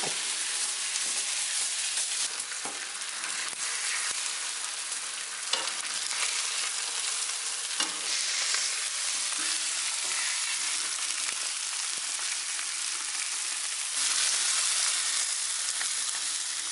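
Lamb chops frying in hot fat in a pan, a steady sizzle with a few short clicks. The sizzle gets louder about fourteen seconds in.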